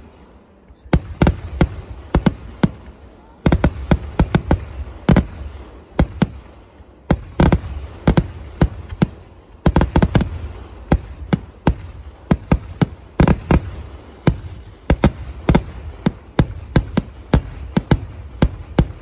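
Fireworks barrage at a Kerala temple festival: shells and crackers go off in quick, irregular sharp bangs, several a second, over a low rumble. There are brief lulls about a second in and again around six seconds in.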